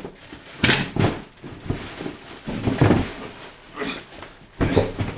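Plastic vacuum-cleaner parts and packaging being handled while unboxing: a run of short knocks, thunks and rustles, about one a second.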